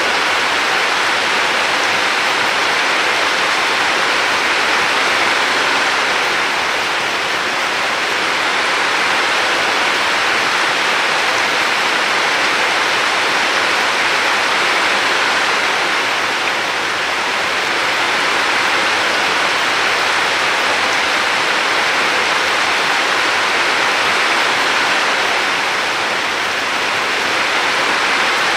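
Steady rushing water with no speech, swelling and easing gently every few seconds.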